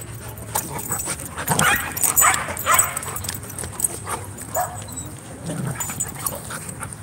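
A group of dogs wrestling in play, giving short barks and yips in quick bursts. The busiest stretch comes about one and a half to three seconds in, with a few more near the end.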